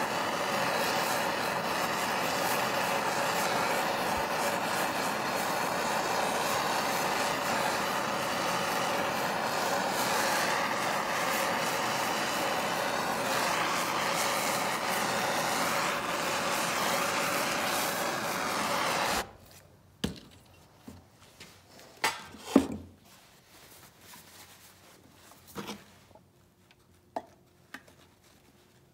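Handheld gas torch burning with a steady hiss as its flame scorches a wooden handle, then cutting off abruptly about two-thirds of the way through. After that come a few sharp knocks and light handling clicks.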